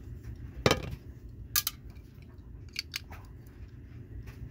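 Small sharp clicks and taps of a diecast model truck and its plastic base being handled and worked with a small screwdriver. One loud click comes just under a second in, followed by a few lighter clicks.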